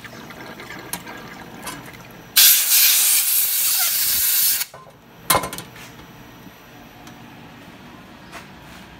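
Compressed-air blow gun hissing in one blast of about two seconds, blowing chips off the part in the milling machine vise. It is surrounded by a few sharp metal clicks, the loudest just after the blast.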